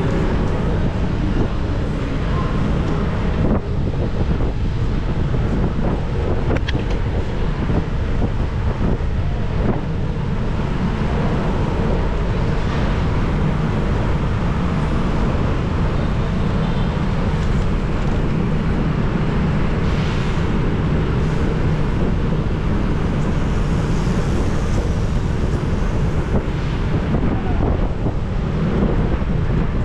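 Wind rushing over a GoPro action camera's microphone while it rides on a moving bicycle, a steady noise that stays the same level throughout.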